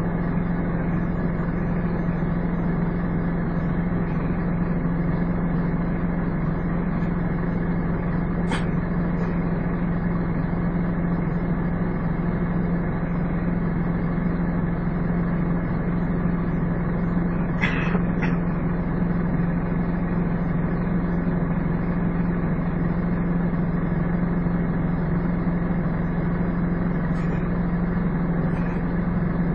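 Scania N230UD double-decker bus running with a steady, even drone: the whooshing "hoover" sound these Scania buses are known for. A single click comes about eight seconds in, and a brief hiss a little past halfway.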